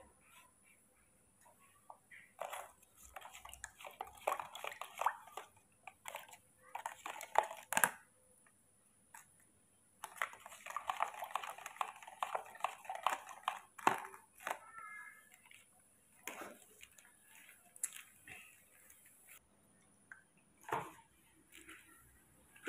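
Intermittent rustling and handling noises, with a few sharp clicks and a denser stretch of rustling about halfway through.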